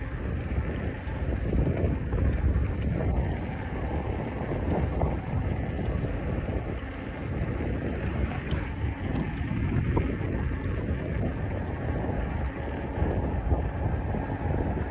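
Wind buffeting the microphone with a steady, gusty low rumble, as from riding a bicycle.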